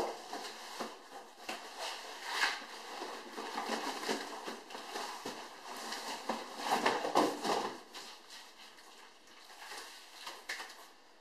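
Rustling, crinkling and scraping of a heavy plastic bag of wort being pulled out of a cardboard kit box, which is hard to get out. The handling is irregular, louder briefly about two seconds in and again for about a second around seven seconds in, then quieter near the end.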